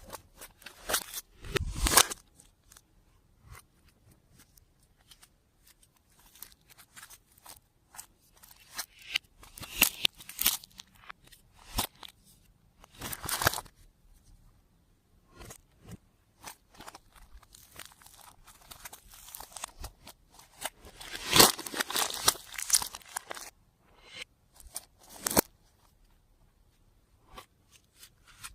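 Clear slime being squished and stretched by hand: sticky crackling clicks and pops that come in irregular bursts, the loudest about two seconds in, around ten and thirteen seconds in, and a long burst about two thirds of the way through.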